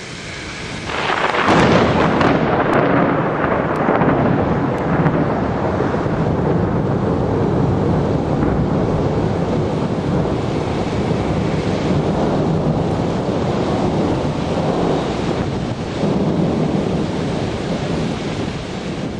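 Thunder from a lightning strike: it breaks out suddenly about a second in, then rolls on in a long, loud rumble that swells again near the end.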